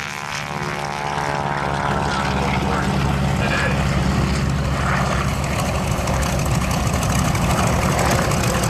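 A North American B-25 Mitchell's twin Wright R-2600 radial engines drone steadily as the bomber rolls past, propellers turning. The drone swells louder over the first few seconds, then holds steady.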